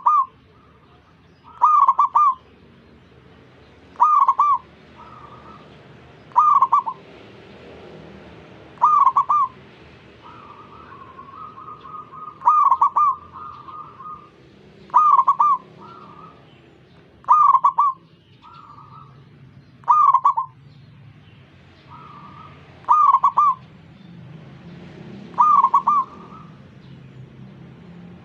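Zebra doves (perkutut) cooing: one bird gives a loud, short coo phrase about every two and a half seconds, and fainter coos from other doves answer in the gaps.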